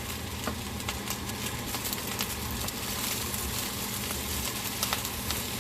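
Fried rice sizzling steadily in a hot pan, with a few sharp crackles or clicks.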